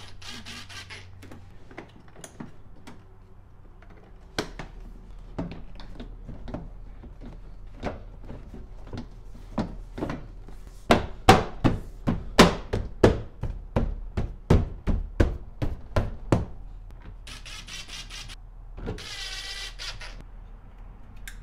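Plastic door panel being fitted back onto a Toyota 4Runner front door: a long string of sharp knocks and snaps as the panel clips are pressed home, loudest in the middle. A cordless drill-driver whirs briefly at the start and twice near the end, driving the panel's screws.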